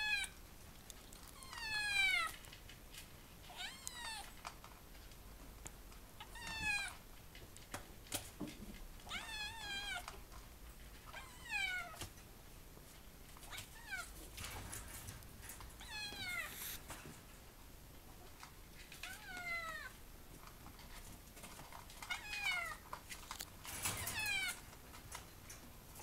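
Kitten meowing over and over, about ten high meows that each fall in pitch, one every two to three seconds: insistent calls to be let out of its cage.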